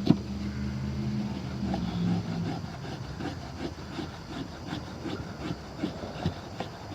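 Serrated edge of a cheap multitool knife blade sawing wood in short, quick strokes, about two to three a second, to raise sawdust. A sharp knock comes right at the start, with a steady low hum under the first couple of seconds.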